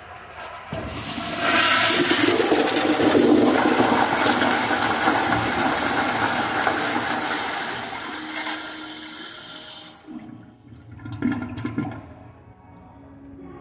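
Kohler Kingston toilet flushed by its chrome manual flush valve: a loud rush of water starts about a second in, tapers off and cuts off sharply at about ten seconds. A few short clattering knocks follow near the end.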